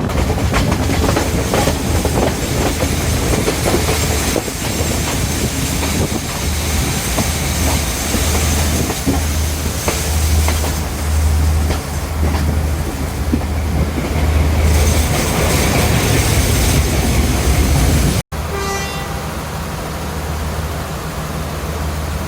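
Diesel express train running at speed: a steady rumble with wheels clicking over the rail joints and a rush of wind. About eighteen seconds in the sound cuts off abruptly and resumes as a quieter, steadier running noise.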